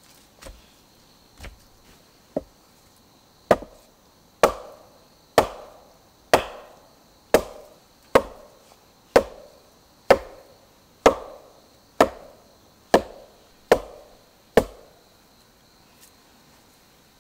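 Wooden mallet striking a split log to seat it in the ground: three light taps, then about a dozen heavy blows roughly once a second, each with a short woody ring.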